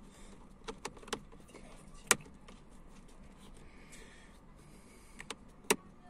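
A screwdriver undoing a screw in a car's plastic steering column cover: scattered sharp clicks and taps of tool on screw and plastic, the loudest about two seconds in and near the end.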